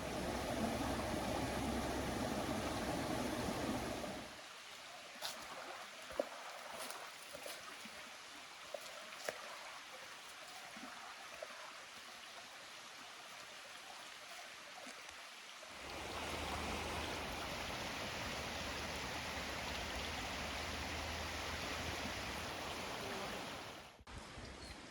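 River water flowing, a steady rushing wash in three abrupt sections: full and fairly loud at first, cutting to a quieter, thinner hiss with a few faint clicks after about four seconds, then back to a full rush from about sixteen seconds in until it cuts off near the end.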